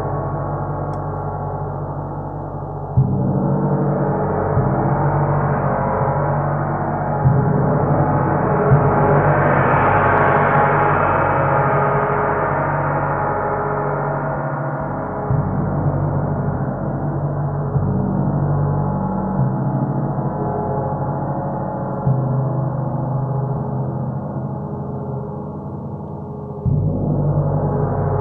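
32-inch bubble drop gong struck over and over with a soft mallet: a sustained ringing wash that builds to its brightest about ten seconds in and slowly settles, renewed by a fresh low stroke every few seconds and a stronger one near the end.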